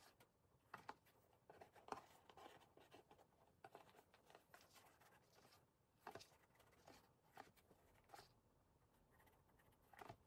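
Faint, scattered rustles and light scrapes of a plaid fabric ribbon and fingertips against a gift box as the bow's loops are adjusted by hand.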